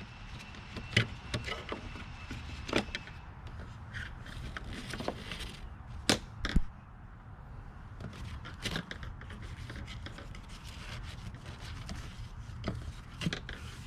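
Nylon tie-down straps and plastic strap clips being handled and fed through loops on a fabric travel bag: scattered rubbing and scraping with sharp clicks, the two strongest about six seconds in.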